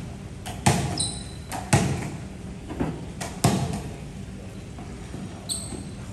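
A volleyball being kicked and bouncing on a tiled floor: a string of sharp thuds about a second apart, the loudest about three and a half seconds in. Two short high squeaks, about a second in and near the end.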